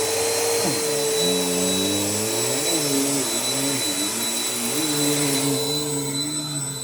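Bissell PowerForce Helix 2191U upright vacuum cleaner running, a loud steady motor whine with lower tones that shift up and down in pitch as it vacuums.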